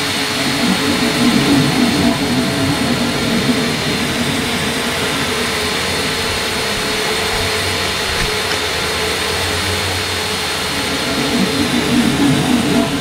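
A steady, loud droning noise, swelling in its lower range shortly after the start and again near the end.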